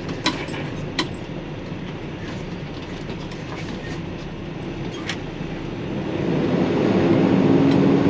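Truck cab noise while driving on a rough dirt road: a steady engine and road rumble with a few sharp rattles and clicks. It grows louder about six seconds in.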